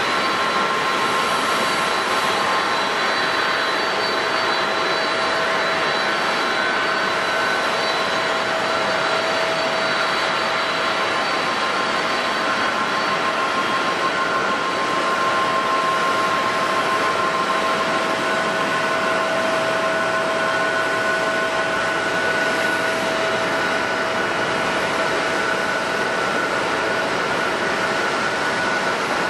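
Boeing 777-200 airliner's jet engines running steadily: an even rushing noise with several steady high whining tones that hold their pitch, at a constant level throughout.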